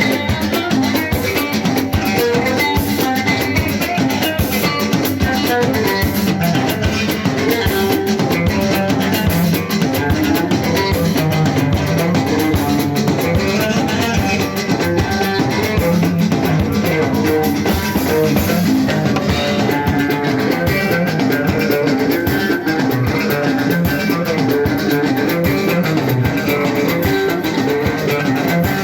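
Loud live Moroccan chaabi music played by a band, with plucked strings and drums.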